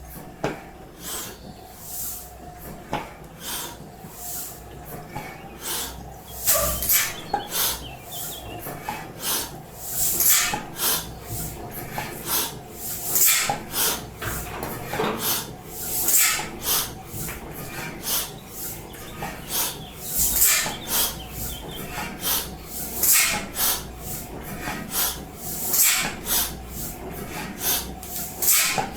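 Slide-valve stationary engine (Schiebermotor) running slowly, making a steady rhythm of hissing puffs about one to two a second. Louder puffs come roughly every three seconds.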